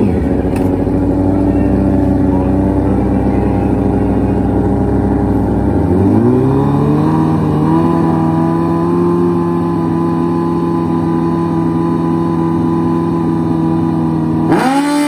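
Two Suzuki Hayabusa inline-four drag bikes at the starting line. Their engines idle steadily, then about six seconds in they are revved up over a second or so to a higher, steady held pitch while staging. Just before the end the sound jumps louder and the pitch climbs as they launch.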